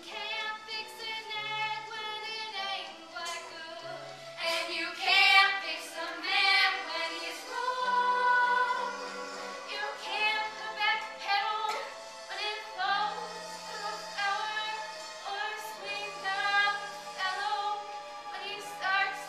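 Young women singing a Broadway show tune live on stage, their voices carrying the melody without a break.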